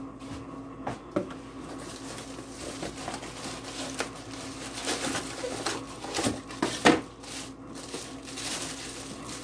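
Cardboard box and plastic bag rustling and crinkling as a small bagged kitchen appliance is pulled out of its packing box and handled, with many small crackles and one louder crackle about three-quarters of the way through.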